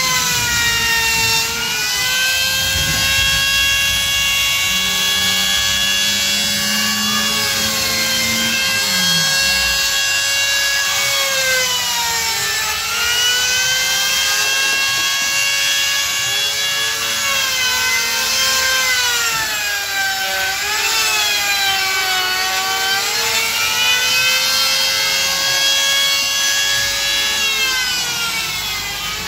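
Handheld electric wood router running with a high whine, cutting a half-round profile into the edges of a wooden chair frame; its pitch sags again and again as the bit bites into the wood and recovers between cuts.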